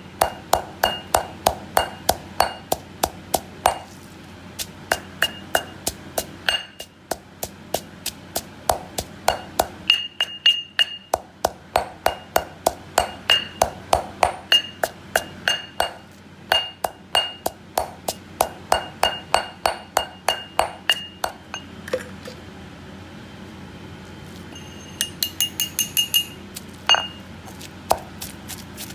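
A pestle pounding steadily in a mortar, three to four ringing strikes a second in runs with short pauses, grinding ingredients for nam prik ong chili paste.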